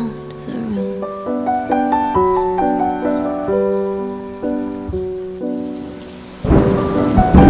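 Slow piano music with single notes struck one after another and left to fade; about six and a half seconds in, a sudden loud crash of thunder with heavy rain takes over and becomes the loudest sound.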